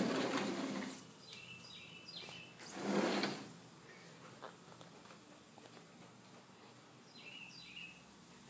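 A small bird trapped indoors giving short high chirps, once about a second and a half in and again near the end. There are broad rustling noises at the start and a louder one about three seconds in.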